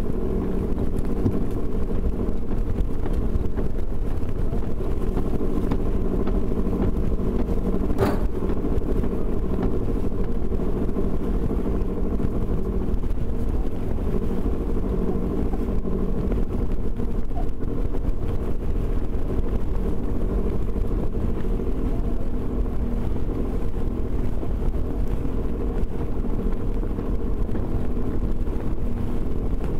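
Steady hum of a boat's engine, with wind buffeting the microphone; a single sharp click about eight seconds in.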